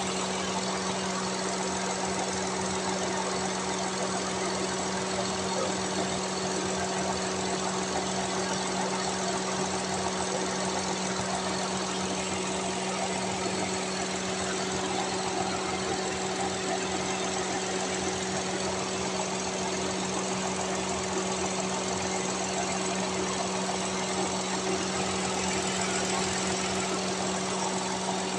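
Mitsubishi Mirage G4's 1.2-litre three-cylinder MIVEC engine idling steadily under the open hood, with an even hum that does not change.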